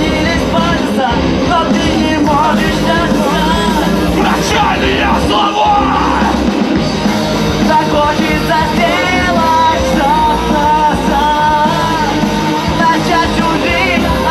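Live rock band playing a song, with a singer's voice over the band.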